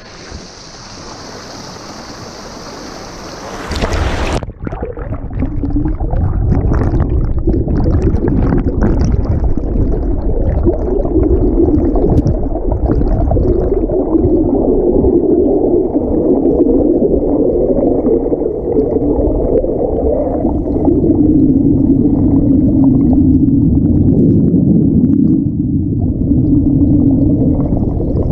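A small stream rushing and splashing where it spills over a log, with a bright hiss. About four seconds in, the sound turns suddenly muffled as it is heard from under the water: a dense, low rush of churning water and bubbles.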